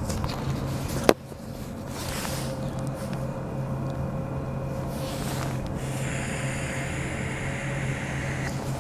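A long hissing draw on an e-cigarette near the end, over a steady low hum.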